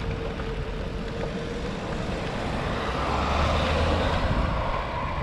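Road traffic, with a motor vehicle passing close by and its rumble swelling from about two and a half seconds in. Steady road and wind noise runs underneath.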